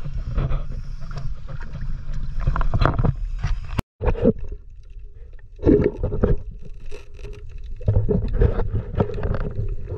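Water splashing and rumbling around a shallow basin where a hand is handling a live squid. After a sudden cut about four seconds in, the dull, muffled gurgling and knocking of a camera held underwater, coming in irregular surges over a faint steady hum.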